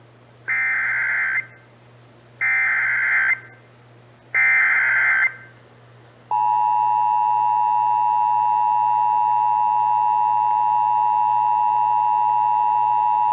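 Emergency Alert System activation on AM radio: the SAME digital header sent three times as three short warbling data bursts about a second apart. About six seconds in, the steady two-tone EAS attention signal (853 and 960 Hz) begins and holds.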